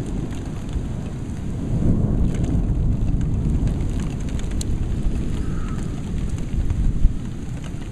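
Heavy rain pouring with a roll of thunder that swells about two seconds in and rumbles on, and a sharp tap near the end.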